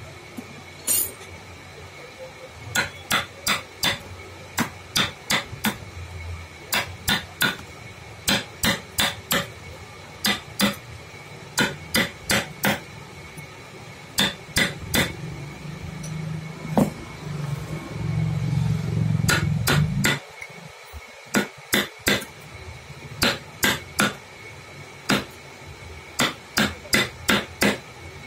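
Hammer tapping a carving chisel into wood, in quick runs of three to five sharp strikes with short pauses between. A low hum rises for a few seconds past the middle and cuts off suddenly.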